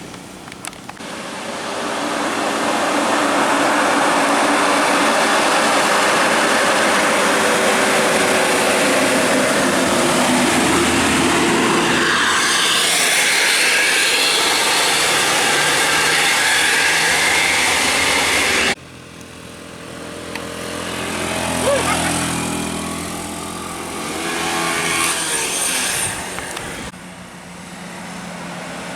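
Heavy road vehicles passing close by with loud engine and road noise. The sound cuts off suddenly about two-thirds of the way through, and another vehicle swells past.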